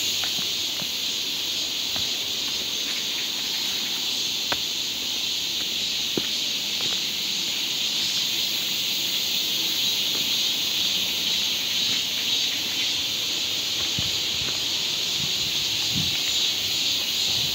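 Steady chorus of insects, an unbroken high hiss, with a few faint clicks scattered through it.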